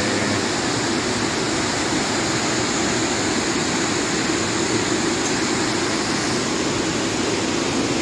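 Waterfall rushing steadily, a strong cascade of water falling over rock.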